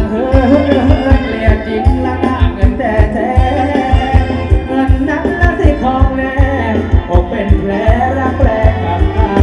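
Live Thai ram wong band music: a singer's melody over a steady, driving drum beat, continuous and loud.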